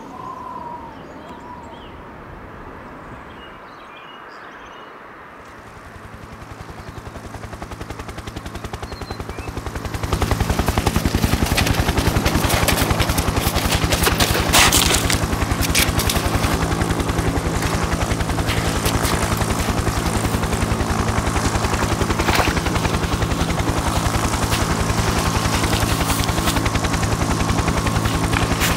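Helicopter rotor chopping with a fast, even beat, faint at first, growing louder over a few seconds, then steady and loud from about ten seconds in. A few sharp cracks sound over it.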